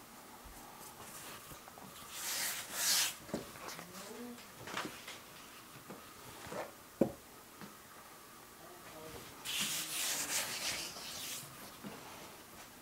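Hands brushing flour over fresh pasta dough sheets and rubbing them against a floured wooden counter as the sheets are folded. There are two longer brushing stretches, about two seconds in and again around ten seconds, with a few light knocks between.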